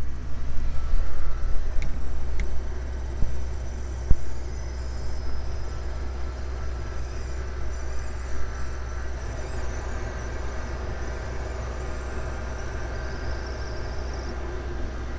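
2016 Acura RDX heater blower motor running with a harsh repeating squeal over the idling engine's steady hum, loudest in the first few seconds, with a single click about four seconds in. The owner takes the noise for a worn-out blower motor, or for leaves or debris caught in the fan.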